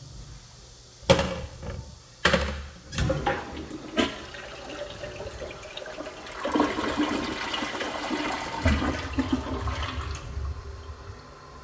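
Kyerim C-407F toilet flushing: several sharp knocks in the first few seconds, then water rushing through the bowl for about four seconds before it dies away.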